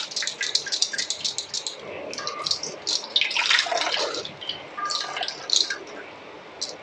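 Blended pandan leaf juice dripping and trickling through a stainless steel mesh sieve into a steel bowl as the pulp is strained. The drips come fast for about the first second and a half, then thin out to scattered drips and splashes.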